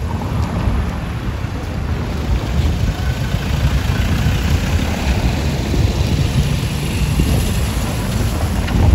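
A motor vehicle's engine running past at street level: a low rumble throughout, with the engine noise swelling through the middle.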